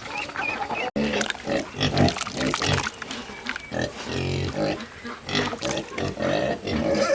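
Farm pigs grunting and squealing in irregular bursts, starting after a sudden cut about a second in; before the cut, short bird-like calls.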